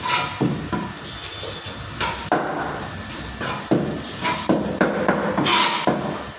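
A broad cleaver-like fish knife knocking on a cutting board in a series of irregular chops as fish are cut, with a brief scrape of the blade near the end.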